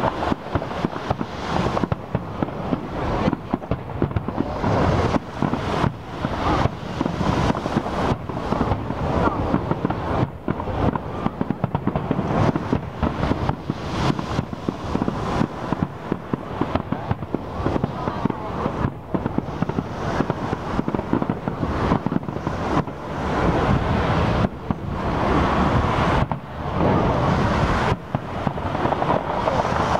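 Aerial display fireworks shells bursting in a dense barrage, many sharp overlapping bangs a second with no let-up.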